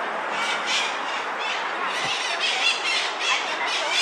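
Busy street crowd hubbub with short, shrill high-pitched calls over it, thicker in the second half.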